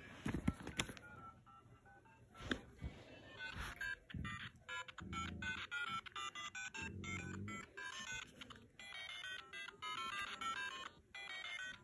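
LEGO Super Mario interactive figure playing a quick electronic jingle through its small speaker, a fast run of short beeping notes like a ringtone, starting a few seconds in. Before it come a few sharp handling clicks, and low rustling bumps from handling sound partway through.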